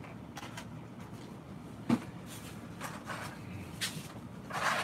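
Cardboard boxes of shotgun shells being handled and moved, with one sharp knock about two seconds in and a few lighter taps and rustles around it.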